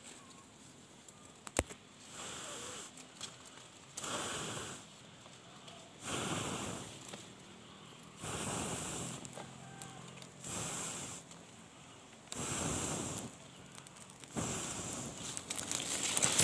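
A person blowing in puffs on a smouldering smoke torch to get it burning: about seven blows roughly two seconds apart, each lasting about a second. A single sharp tap comes near the start.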